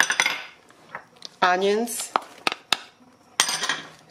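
A knife scraping chopped pickles and diced onion off a wooden cutting board into a stainless steel mixing bowl. There is a scraping rush at the start and another near the end, with a few sharp clicks in between.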